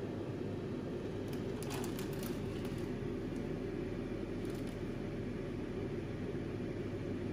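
Steady low background rumble, with a few faint ticks in the first half.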